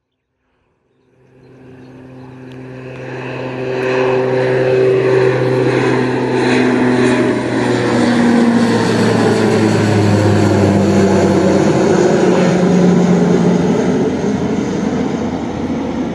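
De Havilland Canada Dash 8 Q400 turboprop at take-off power: the drone of its two Pratt & Whitney PW150A engines and six-bladed propellers fades in about a second in and grows loud within a few seconds. It then holds steady, its propeller tones dropping in pitch as it passes.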